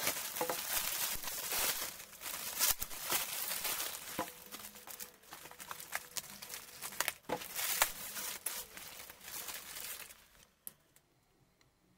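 Plastic packaging crinkling and tearing as a black plastic wrap is pulled and crumpled off a grey poly mailer, full of sharp crackles. It stops about two seconds before the end.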